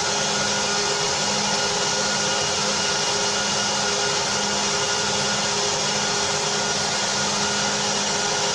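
Large cooling fan of an IBM server power supply running steadily at speed, a loud even rush of air with a constant hum and whine, while the repaired supply is powered up and driving its test load.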